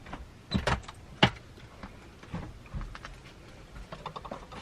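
Scattered light knocks, taps and rustles of things being handled and bumped while someone moves about, with a quick run of small ticks near the end.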